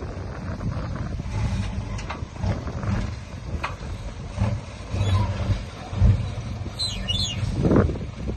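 Heavy diesel earthmoving machinery working: an engine running with a low, uneven hum, with scattered knocks and clanks. There are brief high squeals near the end.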